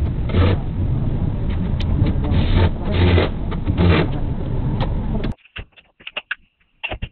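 Loud, steady workshop background noise with a low hum and a few brief swells. It cuts off abruptly about five seconds in, leaving quiet with scattered light clicks and knocks of parts and tools being handled.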